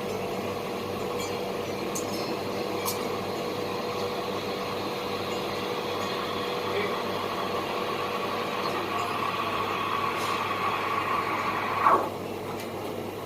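Electric coffee grinder's motor running steadily with a high whine, then switched off about 12 seconds in, its pitch falling quickly as it spins down.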